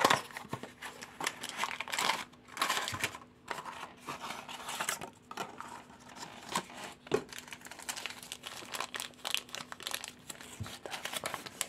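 Cardboard blind box being opened and a plastic wrapper handled and crumpled: irregular crinkling and rustling that comes in bursts.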